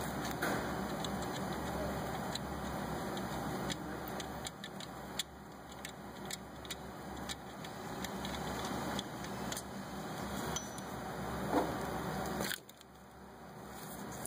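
Irregular light metallic clicks and clinks of hand tools, a wrench working on the alternator mounting bolts, over a steady background hum that drops away suddenly near the end.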